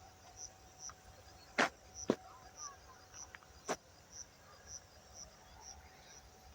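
An insect chirping in short high pulses about twice a second, with three sharp clicks, the first two close together and the third about a second and a half later.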